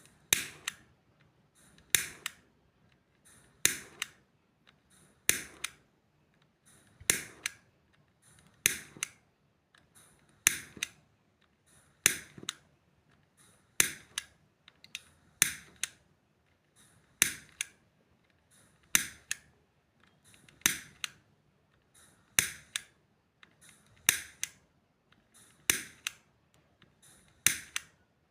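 Matches being struck one after another at a steady pace, about one every second and a half to two seconds. Each strike is a quick, sharp scratch that dies away in under a second.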